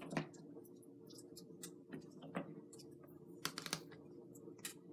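Faint, scattered clicks and taps from a shrink-wrapped cardboard box and a plastic ruler being handled as the box is turned and measured, over a steady low hum.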